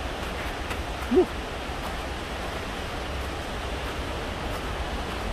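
Steady rushing of Multnomah Falls. About a second in there is one short cry that rises and falls in pitch.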